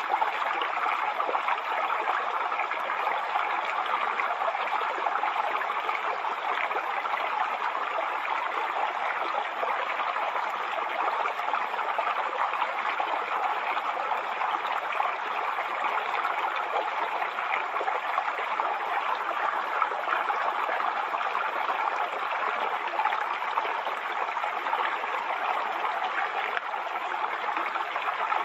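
Waterfall: falling water splashing and rushing in a steady, even wash of noise.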